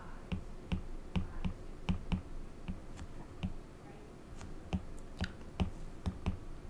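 Stylus tip tapping and clicking on a tablet's glass screen during handwriting: faint, irregular light clicks, about two or three a second.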